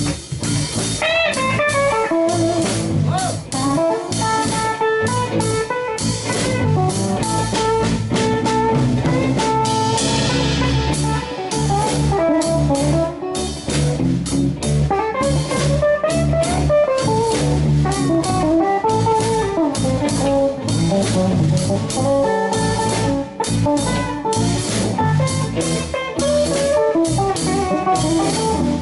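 Live band playing a blues jam: an electric guitar plays a melodic lead line with string bends over a drum kit keeping time, with a cymbal wash about ten seconds in.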